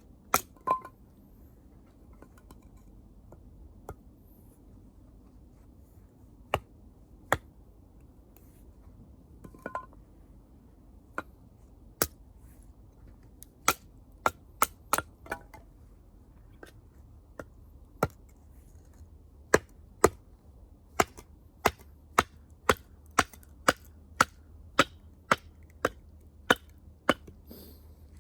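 Sharp cracks of wood, scattered and irregular at first, then coming steadily at about two a second from a little past the middle.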